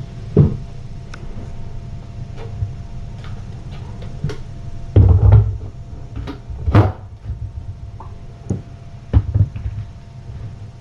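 Scattered knocks and thumps, the loudest a cluster about five seconds in, over a steady low electrical hum.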